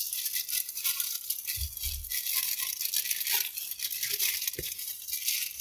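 Paper fast-food burger wrapper crinkling and rustling as it is opened by hand, with a soft knock about four and a half seconds in.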